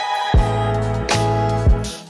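Background music with a drum beat and a low bass line.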